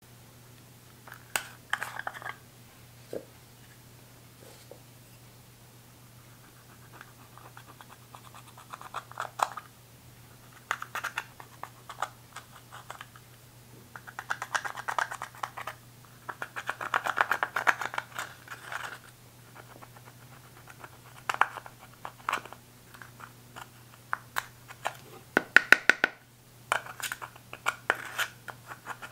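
Pressed eyeshadow being scraped and crumbled out of a plastic compact with a small metal-tipped tool, in irregular bursts of gritty scratching with sharp clicks and ticks, over a faint low steady hum.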